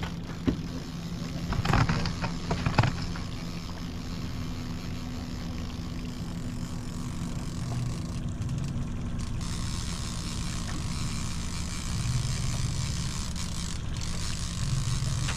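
Boat motor running steadily at low speed under a light hiss, with a few short knocks and clicks about two seconds in.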